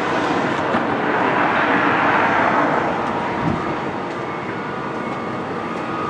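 A passing vehicle: a loud rushing noise swells to a peak about two seconds in and then fades, with a faint thin steady squeal toward the end.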